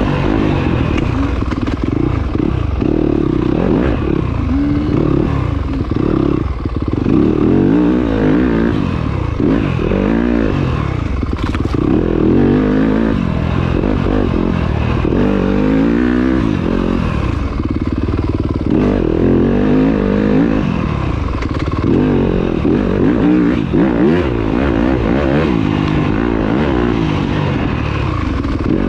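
Yamaha YZ250FX dirt bike's single-cylinder four-stroke engine ridden hard around a tight trail loop, revving up and dropping off again and again, its pitch rising and falling every second or two.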